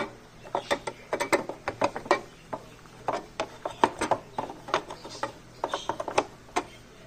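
Irregular small clicks and taps of metal and plastic sewing-machine parts being handled as the needle plate is fitted back onto a Singer Patchwork sewing machine.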